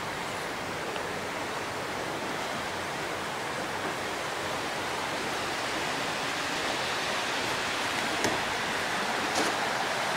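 Steady rushing of creek water spilling over a low mill dam, growing a little louder toward the end, with two short knocks near the end.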